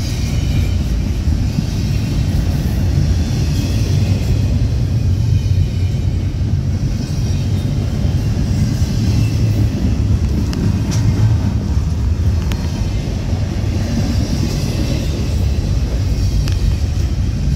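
Double-stack container train's well cars rolling past close by: a steady rumble of steel wheels on the rails, with faint high squeals at times.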